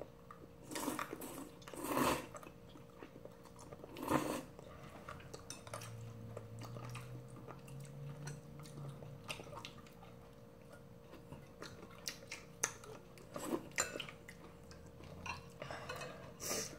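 Eating instant jjamppong ramyeon noodles: several short slurps of noodles, with quiet chewing between and light clinks of chopsticks on ceramic bowls.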